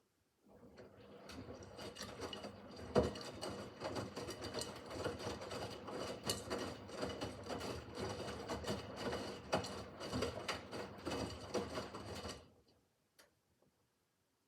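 Miele W5801 washing machine's drum turning in the wash phase of an easy-care 30 °C programme: the motor runs with laundry tumbling and knocking in the drum, starting about half a second in and stopping after about twelve seconds, then a faint click.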